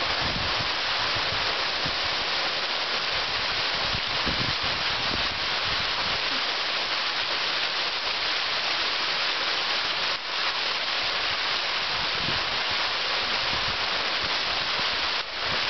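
Small waterfall pouring onto rock and a shallow pool: a steady hiss of falling, splashing water.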